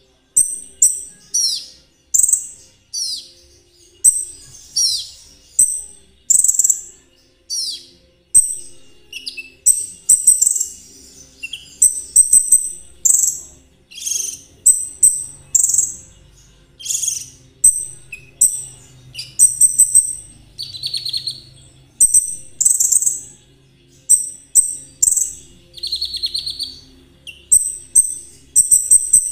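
A konin songbird singing a long run of short, high chirping phrases, about one a second, some with falling sweeps and a few as brief buzzy trills.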